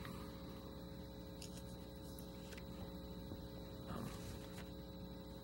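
Steady electrical mains hum and room tone from the meeting's microphone feed, with a faint brief sound about four seconds in.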